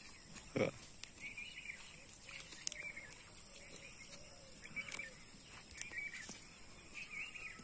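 Small birds chirping in short scattered calls in the background of quiet outdoor ambience, with one brief louder thud about half a second in.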